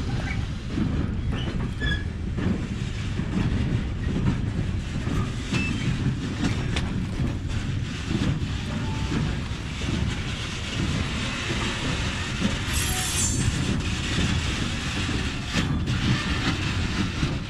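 Loaded freight wagons rolling past on the rails: a steady heavy rumble, wheels clattering over rail joints with a metallic squeal.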